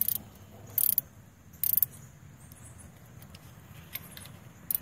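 Ratchet wrench clicking in short bursts as it is swung back between turns: three near the start and one near the end. It is winding M6 jacking bolts into a BMW E36 water pump flange to press the pump evenly out of the engine block.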